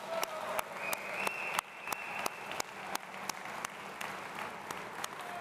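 Audience applauding, with sharp individual claps standing out. A high held tone rises above the clapping about a second in and lasts about a second and a half.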